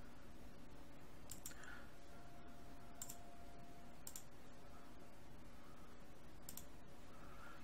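Computer mouse button clicks: about five short, sharp clicks spaced one to two seconds apart, one of them a quick double click, over faint steady room hum.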